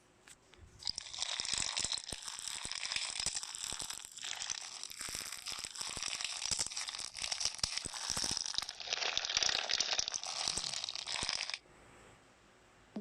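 Slime being squeezed and worked with a dense crunching, crackling sound that starts about a second in and cuts off suddenly near the end.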